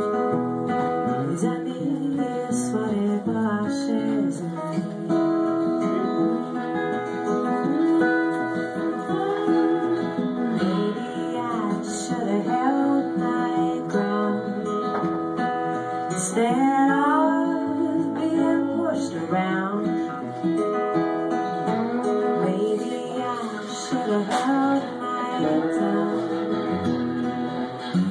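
Live acoustic music: two acoustic guitars played together, with singing.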